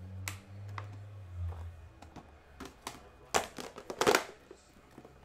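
Scattered clicks and knocks of objects being handled on a desk, with two louder clatters about three and a half and four seconds in. A low hum runs through the first second and a half.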